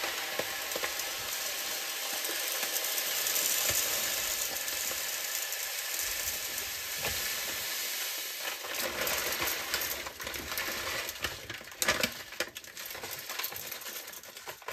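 Coarse dishwasher salt pouring from a plastic bag through a funnel into a dishwasher's water-filled salt reservoir: a steady granular hiss that thins to scattered trickles and taps in the last few seconds.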